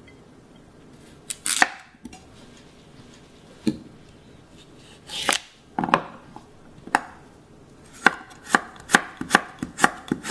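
Kitchen knife slicing a carrot on a wooden cutting board. A few separate cuts come first, then a quicker, even run of slices, about two or three a second, near the end.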